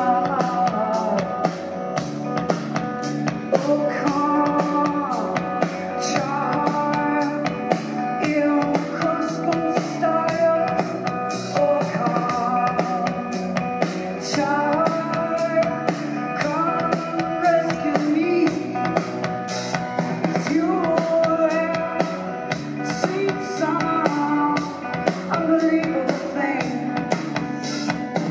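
Live rock band performance: a woman singing lead over electric guitar and a drum kit keeping a steady beat, the cymbal ticks evenly spaced.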